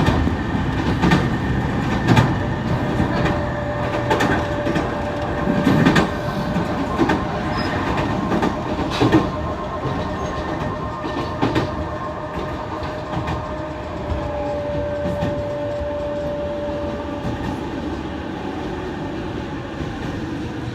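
E231-series electric train running, its wheels clacking over rail joints, with a steady whining tone that sets in about three seconds in and fades out near the end. The uploader takes the whine for an abnormal noise from the train and says it is not wind.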